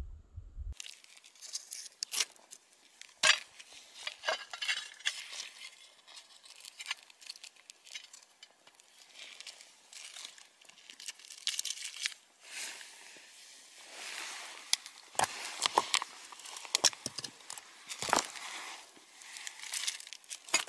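Packaging being crinkled and handled, an irregular crackling with many sharp clicks.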